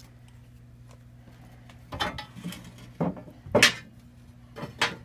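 Metal floor plate of a wood stove clanking and knocking against the firebox as it is lifted and shifted by hand. Several knocks come from about two seconds in, the loudest about halfway through.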